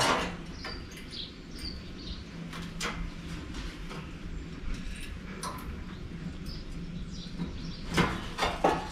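Sheet-metal lip being bent by hand with a slotted bending tool: scattered faint metallic clicks and creaks over a steady low hum, with two sharper knocks near the end.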